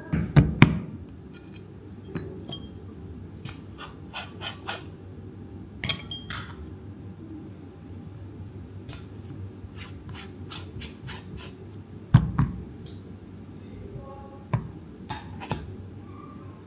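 Metal espresso tools (portafilter, tamper, dosing ring) being set down and handled on a rubber-topped tamping station, making scattered light clicks and clinks. Two heavier knocks come about half a second in and about twelve seconds in.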